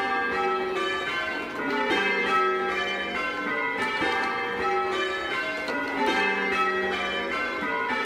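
Church bells being rung full circle by rope from the ringing chamber below: a ring of six in G with an 11 cwt tenor, strokes following one another in an even, continuous sequence as in change ringing, each bell ringing on and overlapping the next.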